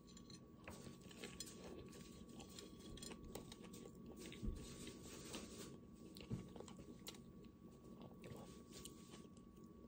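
Faint close-up chewing of a barbecue jackfruit slider with coleslaw, soft wet mouth sounds with small crunchy clicks and a couple of soft low knocks.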